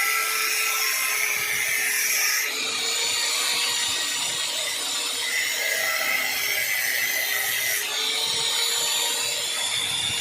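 Angle grinder running and cutting a groove across the friction lining of a motorcycle drum brake shoe: a steady grinding hiss over the motor's hum, its character changing twice, about two and a half and eight seconds in.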